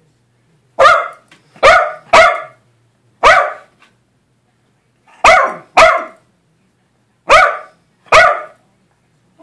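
A small Jack Russell–dachshund mix dog barking at a dancing toy: eight sharp barks, some in quick pairs, with short pauses between them.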